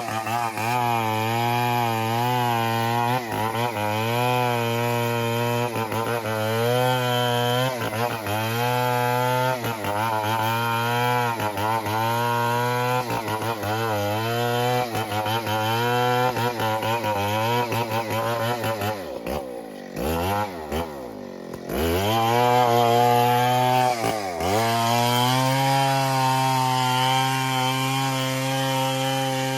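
Two-stroke chainsaw running under load, its engine note wavering as it cuts ironwood. About two-thirds of the way in the engine drops low, almost dying, then revs back up, with a second short dip soon after.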